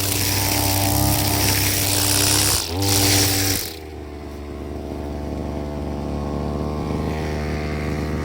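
Petrol brush cutter engine running at high speed, with a brief rise in revs about three seconds in; then it is throttled back, the high hiss falls away and the engine runs on more quietly, slowly picking up again.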